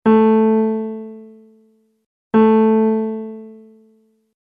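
Intro music: the same single piano-like keyboard note struck twice, about two and a half seconds apart, each ringing out and fading away over about two seconds.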